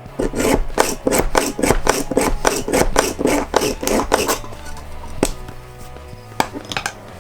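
Rotary push-action leather hole punch pumped up and down about four times a second, its cutting bit rasping as it twists through thick leather, for about four seconds; then a few sharp clicks.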